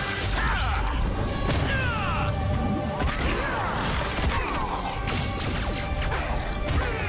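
Action-movie background music mixed with cartoon battle sound effects: many short falling zaps and whooshes, with hits and crashes.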